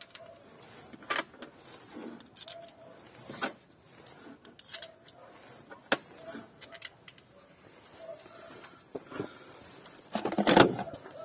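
Scattered clicks and knocks of hands and tools working on the ignition coils, plastic and metal parts tapping as the coils are refitted, with a louder clatter about ten seconds in.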